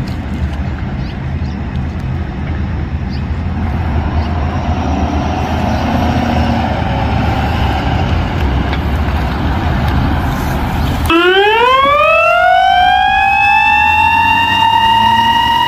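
Ambulance engine rumbling as it pulls out and drives closer. About eleven seconds in its siren comes on, rising in pitch over a couple of seconds and then holding a high wail as it passes.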